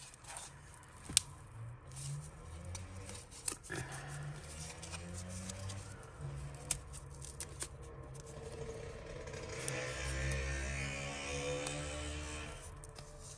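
Small metal earrings being handled and worked off a cardboard backing card: light scraping and small clicks, with one sharp click about a second in. A low background swell rises and fades in the second half.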